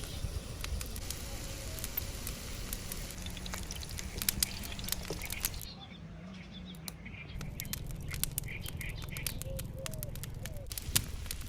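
Outdoor rural ambience: birds chirping over a steady low rumble, with scattered small clicks.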